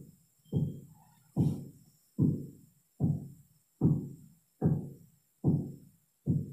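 Background music: a plain, low drum-like beat, one hit about every 0.8 seconds, each hit dying away quickly.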